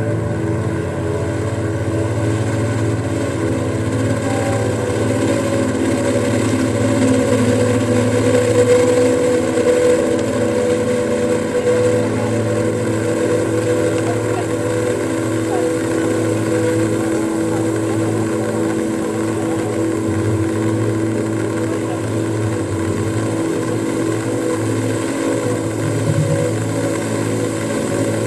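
Ambient drone music from electric guitars run through live-looping gear and laptops: layered held tones over a low hum, shifting slowly and swelling a little about a third of the way in.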